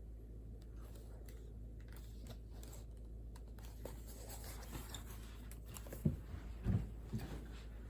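Faint scratching and light taps of someone working at a desk, with a few soft knocks about six to seven seconds in, over a low steady hum.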